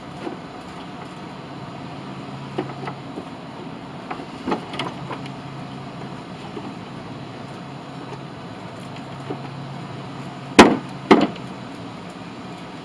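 Scattered knocks and clicks of mower parts and tools being handled while a shift cable is worked into place, with two loud sharp knocks half a second apart near the end. A steady low hum runs underneath.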